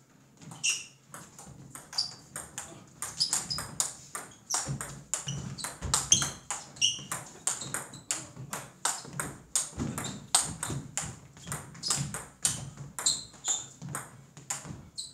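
A long table tennis rally: the celluloid-type ball clicking off rubber paddles and bouncing on the table in a quick, even back-and-forth, about three hits a second.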